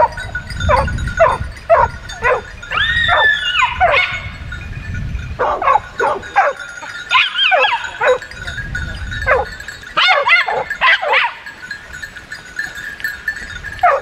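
Dog barking repeatedly, about two barks a second at first, broken by a couple of longer yelping calls that rise and fall in pitch. There is another quick run of barks before a short pause and more barks near the end.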